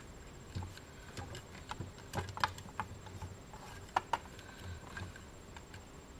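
Irregular small clicks and taps of hands and a tool working inside an opened Midland CB radio, with two sharper clicks about two and a half and four seconds in.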